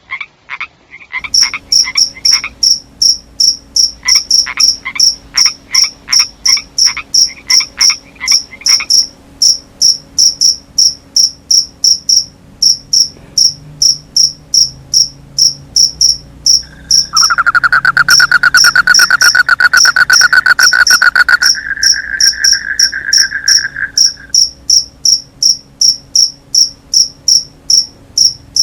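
Night chorus of frogs and crickets. A high chirp repeats about three times a second throughout, lower pulsed croaks sound in the first third, and a loud, rapid trill comes in past the middle for several seconds.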